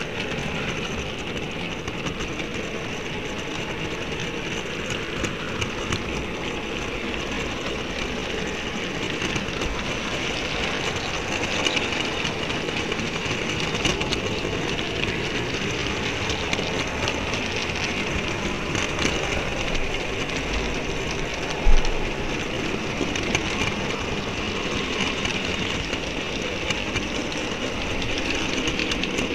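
Model railway wagons rolling along the track, heard from a small camera riding on the train: a steady rolling rumble with light ticks from the wheels over rail joints, and one low bump about three quarters of the way through.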